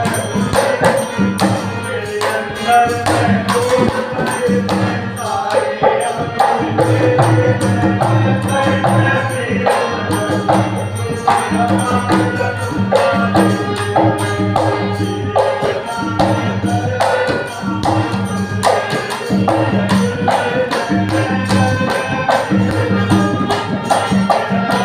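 Devotional bhajan music with a steady beat of hand percussion.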